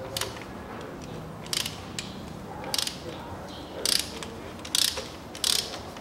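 Ratchet wrench with a 16 mm spark plug socket on an extension, clicking in about seven short runs as it is swung back and forth to unscrew an original spark plug.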